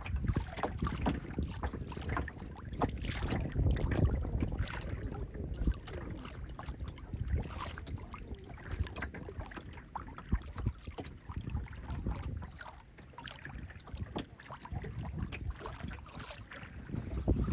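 Wind buffeting the microphone on a moving boat with water noise beneath: a strong, uneven low rumble broken by many short gusts.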